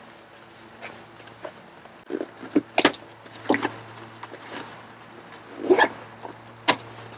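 Scattered clicks, knocks and rustles of gear being handled and packed into nylon MOLLE pouches on a Jeep tailgate, with a few sharper knocks and a faint steady low hum underneath.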